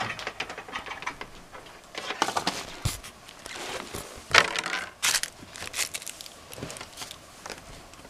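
Rustling and clattering of objects being handled and moved about, with several sharp clicks and knocks, the loudest about halfway through.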